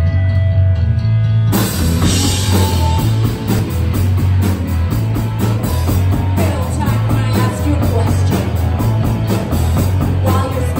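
A live rock band (drum kit, electric guitar, bass and violin) playing a song. A sustained droning note with a heavy bass line opens it, and the full band with crashing cymbals comes in about a second and a half in.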